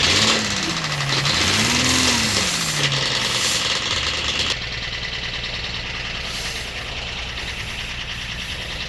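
Toyota Camry 3.0 L V6 engine running with a knock, the sign of a misfire on cylinder 2. In the first three seconds its pitch falls, rises and falls again, and about halfway through it settles quieter.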